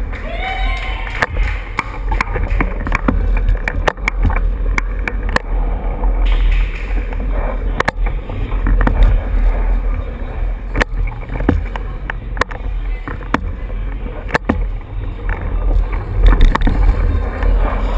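Riding noise picked up by a camera carried on a racing bicycle: a steady heavy rumble with frequent sharp rattles and knocks from the bike and camera mount as it is ridden fast over a smooth floor.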